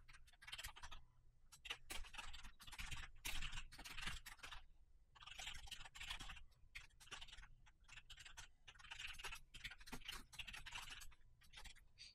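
Faint computer keyboard typing: irregular bursts of keystroke clicks.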